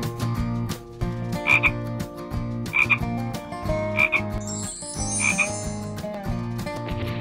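Background music with a short sound effect that repeats four times, a little over a second apart.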